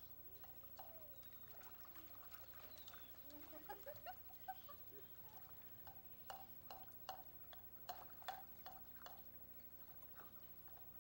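Faint splashing and dripping of swimming-pool water, a string of short wet ticks that are thickest a little past the middle, with a few faint gliding calls over it.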